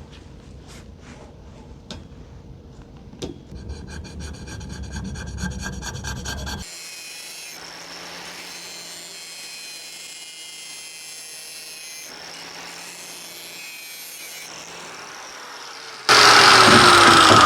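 Garage tool work: a few knocks, then rapid even clicking for a few seconds. It cuts to a steady low hum, and near the end a loud power tool starts suddenly, its pitch falling.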